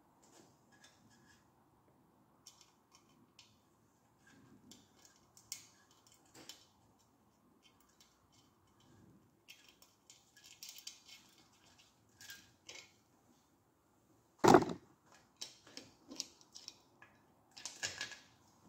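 Hand tools and small metal parts being handled during assembly work: scattered light clicks and rattles, with one sharp knock about fourteen seconds in and a quick run of clicks near the end.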